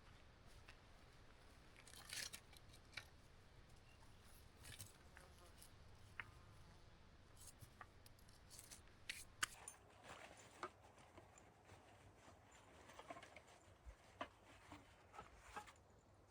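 Near silence, broken by faint scattered clicks and light rustling, as of small objects being handled.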